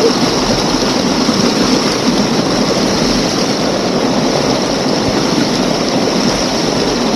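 Heavy rain falling steadily, a dense even hiss, with irregular low rumbles underneath.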